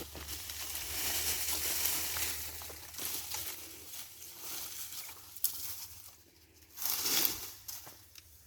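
Rustling and crunching of brush and fallen branches being moved by hand, with a sharp snap about five and a half seconds in and a louder crunch around seven seconds.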